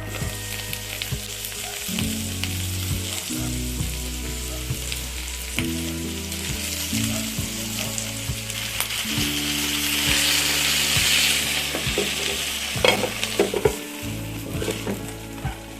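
A steady sizzling, crackling hiss with a few sharp clicks near the end, over soft background music of slowly changing held notes.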